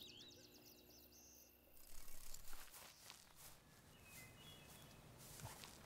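Near silence: faint outdoor ambience with a few faint high chirps, and a soft rustling rise about two seconds in.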